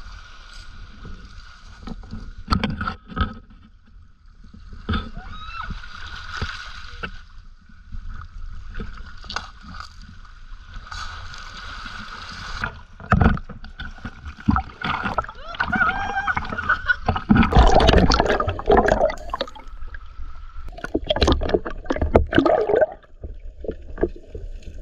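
Sea water sloshing and splashing around a snorkeler wading in from a pebble beach, with scattered sharp knocks and clatters, louder and busier in the second half.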